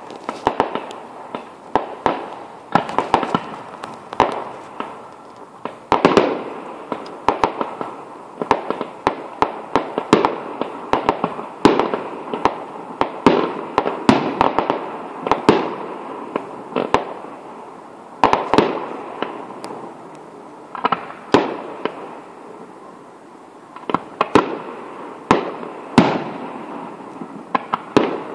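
Fireworks display: a rapid, irregular barrage of bangs from bursting shells, several every second, with crackle and echo rolling on between them.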